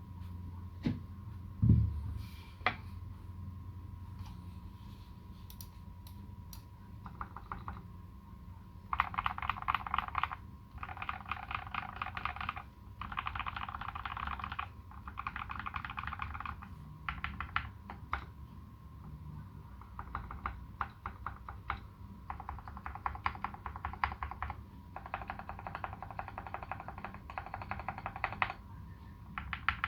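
Typing on a Space65 custom mechanical keyboard with modded Turquoise Tealios linear switches and SA-profile keycaps: bursts of fast keystrokes with short pauses between them. A single loud low thump about two seconds in.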